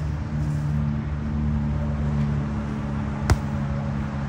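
A volleyball being struck once: a single sharp smack about three seconds in, over a steady low hum.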